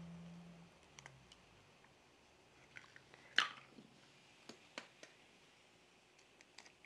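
Eggs being cracked open over a plastic mixing bowl: a sharp crack of shell about halfway through and another near the end, with light clicks and taps of shell around them.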